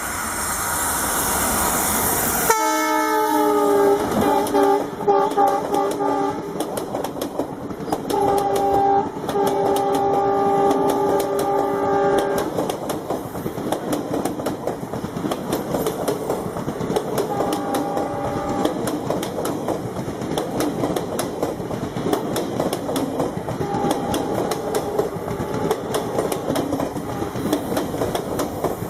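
WDM-3A diesel locomotive's multi-tone air horn honking over a passing train, several tones sounding together: it starts about two and a half seconds in after a rush of noise, gives a string of short blasts and a long one, then two shorter honks later. Under it the steady clickety-clack of the coaches' wheels over the rail joints.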